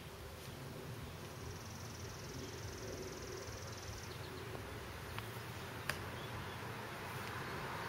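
Quiet outdoor background with a high, fast insect trill starting about a second in and stopping about four seconds in, and one sharp click a little after the middle.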